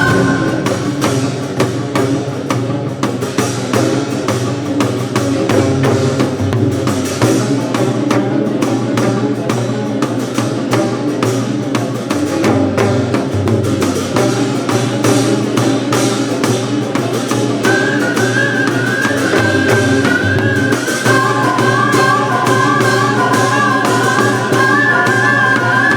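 Korean traditional orchestra (gugak orchestra) playing a piece built on the rhythms and melodies of East Coast byeolsingut shaman music, with fast, dense percussion throughout. A high, held melody line comes in about two-thirds of the way through.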